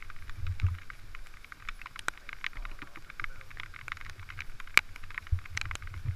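Raindrops tapping irregularly on the helmet camera's housing, many small sharp ticks, over a steady low rumble.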